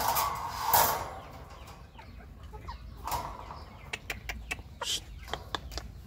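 Black game chicken clucking low as it moves about its pen, with a loud rustling burst about a second in and a quick run of sharp clicks in the last two seconds.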